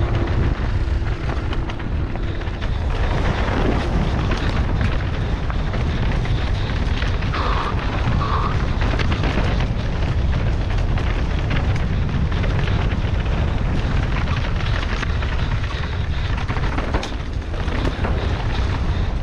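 Wind buffeting the microphone with a constant low rumble, over the rattle and clatter of a mountain bike ridden fast down a rough, rocky trail.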